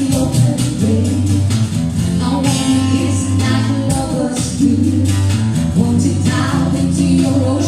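Acoustic cover of a pop song: guitar playing with a voice singing over it and light percussion keeping the beat.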